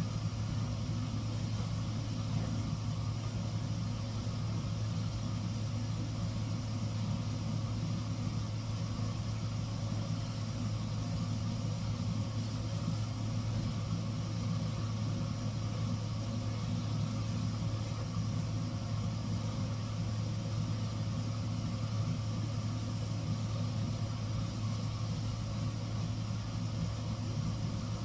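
Steady, unchanging low machine hum.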